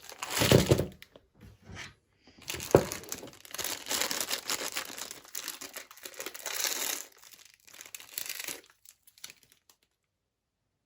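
Ice cream packaging crinkling and tearing in irregular bursts as it is unwrapped by hand, with one sharp knock about three seconds in.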